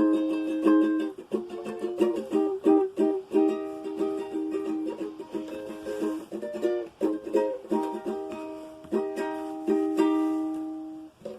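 Acoustic guitar being played: a steady run of picked notes and chords, ending on a chord that rings out and fades shortly before the end.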